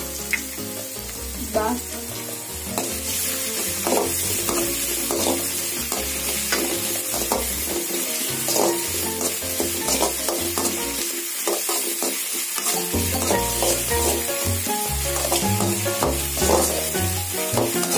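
Chopped onion, capsicum and green chillies sizzling in hot oil in a metal kadai. A perforated metal spoon scrapes and stirs against the pan over and over.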